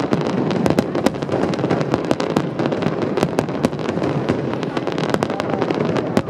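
Fireworks display: a dense, irregular run of sharp bangs and crackles, several a second, over a continuous din.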